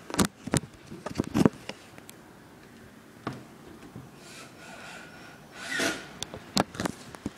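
Handling noise on the camera's microphone as it is moved: a cluster of sharp clicks and rubbing knocks in the first second and a half, a short rustle just before six seconds in, and more clicks near the end.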